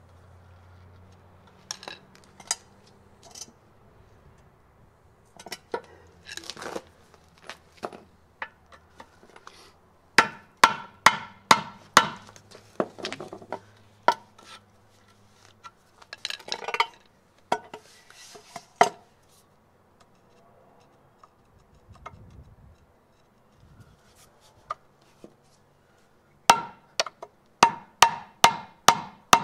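Hammer blows on a long steel drift set against the lower control arm's bushing, driving the old rubber bushing out of its eye. The strikes ring and come in runs of about two to three a second, the heaviest near the middle and again near the end, with scattered single knocks between.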